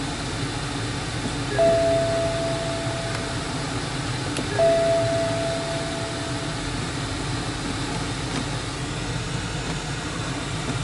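A car's two-tone warning chime sounds twice, about three seconds apart, each ding fading away. Under it runs the low, steady hum of the BMW 550i's 4.4-litre twin-turbo V8 idling.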